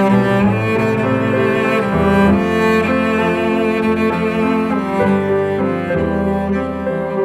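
Instrumental string music led by cello: slow held notes that change every second or two over a low bass line.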